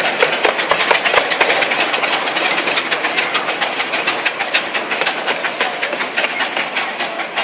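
Riding car of an old steam train rattling and clacking over the rails at speed, a fast, dense clatter of clicks.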